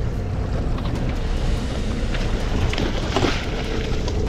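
A boat's motor running steadily under way, mixed with water washing against the hull and wind on the microphone. A short burst of noise with a few clicks comes about three seconds in.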